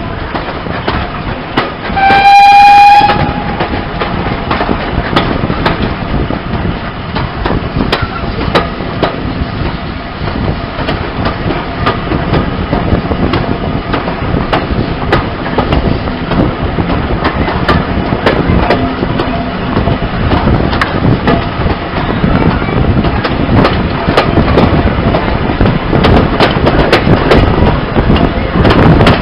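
A steam locomotive's whistle gives one short, steady blast about two seconds in. Then the coaches of the steam train roll past with a continuous rumble and a rapid clatter of wheels over the rail joints.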